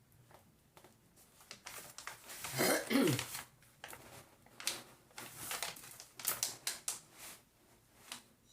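A diamond painting canvas and its plastic cover being handled: scattered crinkles, rustles and light taps, with a short hummed vocal sound about three seconds in.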